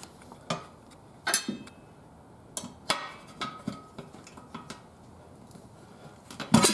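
Scattered clicks and metallic clinks of tire levers working a tire bead onto a steel wheel rim, with a louder knock near the end.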